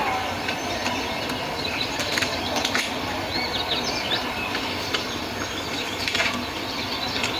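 Giant panda chewing and crunching a bamboo stalk, with a few sharp cracks as the bamboo splits under its teeth.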